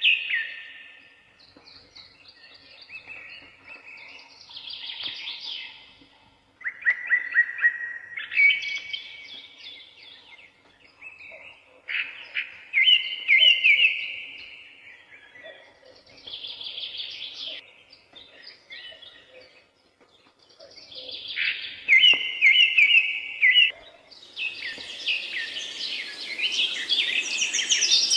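A songbird singing short phrases of rapid chirps and trills, one every few seconds with pauses between. In the last few seconds a steady hiss of background noise grows louder under the song.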